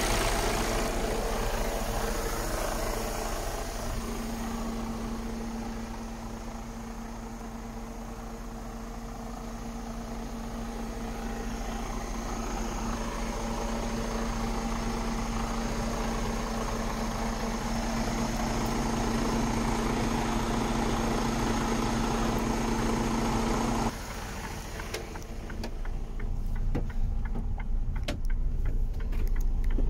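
Mercedes-Benz Actros 2551 truck's inline-six diesel engine idling steadily, with a steady hum over it. About three-quarters of the way in the sound drops suddenly and becomes muffled, and scattered clicks follow.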